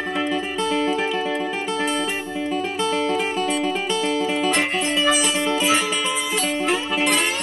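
Background music: acoustic guitar picking a bright tune with plucked, quickly repeated notes.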